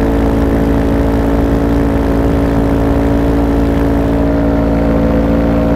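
Paramotor engine and propeller running at a steady throttle in flight: a constant, loud drone that holds one pitch throughout.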